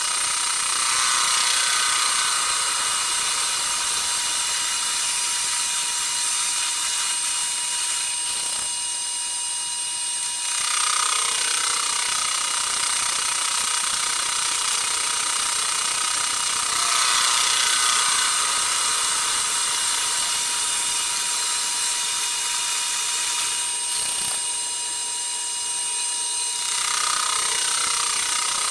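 Metal lathe running, its tool taking a light cut on a spinning rectangular metal block: a steady machine whine with cutting hiss that swells and eases several times.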